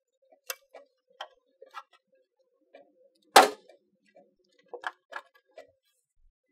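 Small plastic clicks and handling taps as an Ethernet cable's plug is pushed into the jack of an eGauge EG3000 energy meter, with one sharp, much louder click about three and a half seconds in.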